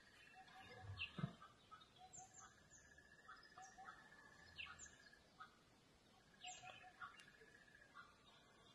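Faint wild birdsong: short falling chirps repeated every second or so over a steady, pulsing high trill that stops and starts. A single dull thump about a second in.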